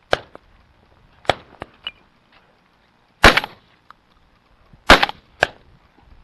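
Two loud shotgun shots about a second and a half apart, the first about three seconds in, with lighter knocks and rustles before them and a sharp knock just after the second.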